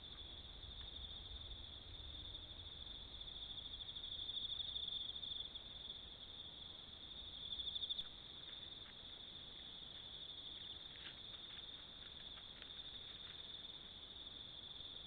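Night insects trilling in a steady, high continuous chorus, swelling louder twice in the first half. Faint light ticks and rustles come through in the second half.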